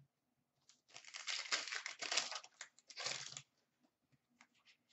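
A trading-card pack wrapper crinkling as it is torn open and handled, for about two and a half seconds, stopping about three and a half seconds in.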